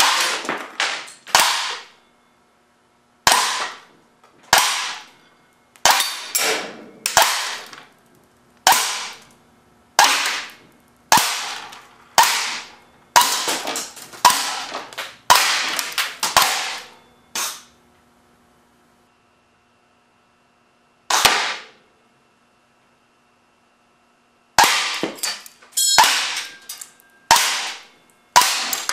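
A .25 calibre semi-automatic air cannon firing shot after shot from its solenoid valve into a plastic toy truck. The shots are sharp cracks at irregular intervals, with a pause of a few seconds about two-thirds through and a quick cluster near the end.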